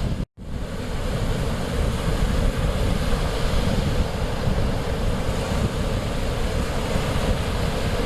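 Mediterranean Sea waves washing steadily, with wind buffeting the microphone. The sound cuts out completely for a moment about a third of a second in, an edit splice, then resumes.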